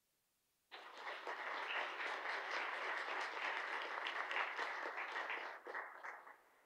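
Applause from a room of people, starting just under a second in, dense and even, then thinning out and dying away near the end.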